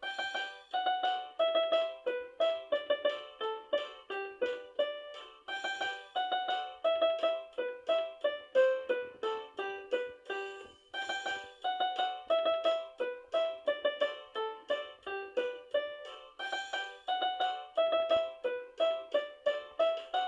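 Instrumental music: a bright melody of quick struck notes that ring and fade, about three a second, with the phrase starting over roughly every five and a half seconds.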